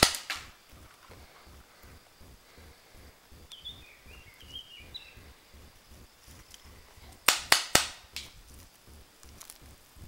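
Paintball marker firing a quick volley of about five sharp pops, about seven seconds in.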